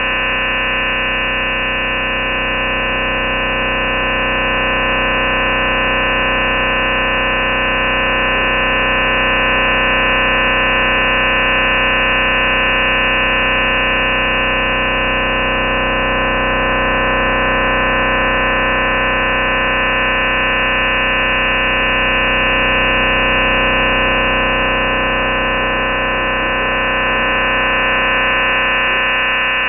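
Chinese shortwave noise jammer heard through a shortwave receiver: a steady, dense drone of many held tones over hiss, swelling slightly in level now and then.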